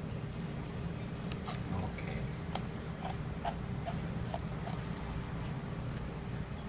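Knife slicing the breast meat away from a raw duck's carcass on a cutting board: scattered small wet clicks and ticks over a steady low hum.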